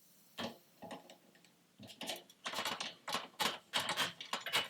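Screwdriver driving small screws to fix a motherboard to a test bench: a few light metallic clicks, then a quicker run of ticks and short scrapes from about two seconds in.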